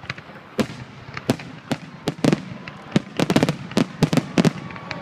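Aerial fireworks shells bursting overhead in a string of sharp bangs at irregular intervals, coming thick and fast from about three seconds in.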